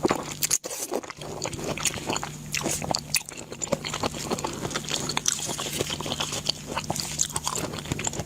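Close-miked eating: a person biting and chewing food, with many quick, irregular crunchy clicks and wet mouth sounds.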